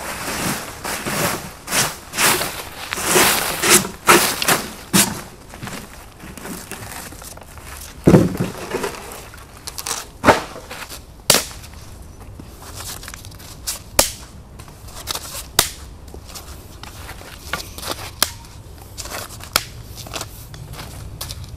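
Dry leaf litter and sticks rustling as they are swept and moved by hand on the woodland floor, with a dull knock about eight seconds in and many single sharp cracks and clicks after it.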